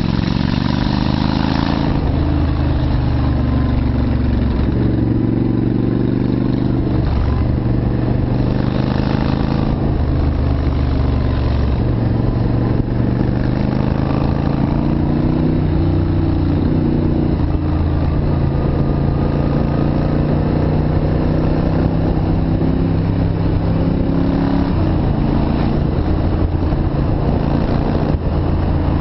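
Yamaha Virago's V-twin engine running on the move, its pitch climbing and dropping back several times as the revs rise and fall through the gears.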